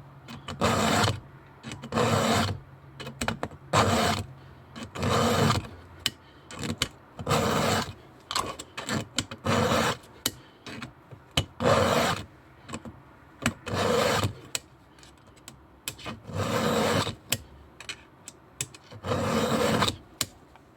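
A file being drawn across a chainsaw chain's cutters to sharpen them. There are about ten rasping strokes, one every second or two, with light clicks in between.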